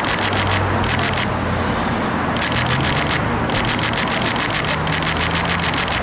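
Steady city street traffic noise, with several bursts of rapid clicking.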